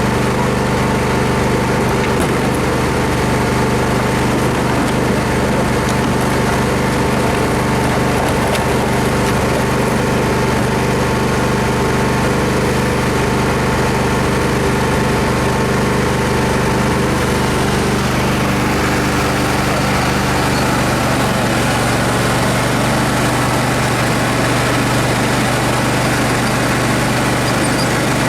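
Tractor engine running steadily, its note shifting slightly about two-thirds of the way through.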